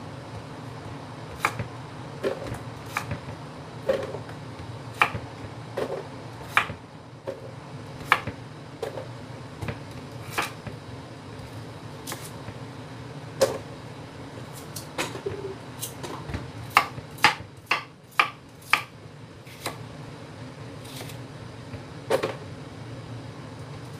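Kitchen knife cutting carrots on a wooden cutting board: irregular sharp knocks of the blade striking the board, with a quicker run of five or six cuts about two thirds of the way through. A steady low hum lies underneath.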